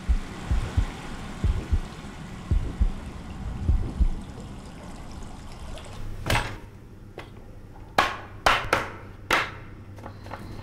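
A whisk working a thick sauce in a pan: wet sloshing with soft, uneven low knocks for the first few seconds. Then, after a lull, a chef's knife chopping shallots strikes sharply on a plastic cutting board, once about six seconds in and four times in quick succession near the end.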